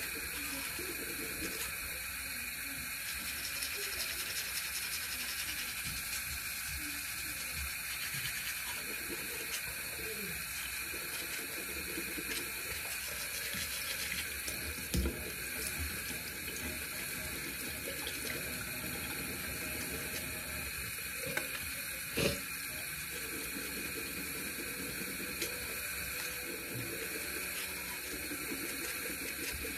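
Tap water running steadily into a bathroom sink during toothbrushing. Two brief knocks sound over the water, one about halfway through and a sharper one about three-quarters through.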